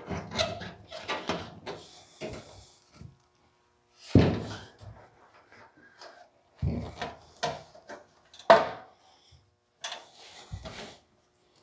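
Handling of a grille shell fitted with woven stainless steel mesh: irregular knocks and clunks as the mesh is pressed in and the shell is shifted and tilted, with two short spells of scraping.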